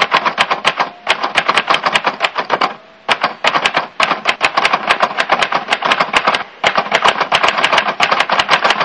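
Typewriter sound effect: rapid, even key clicks, about eight a second, in runs broken by brief pauses about a second, three seconds and six and a half seconds in.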